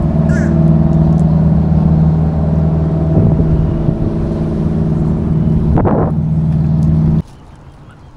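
An engine running with a steady, even drone that cuts off suddenly about seven seconds in.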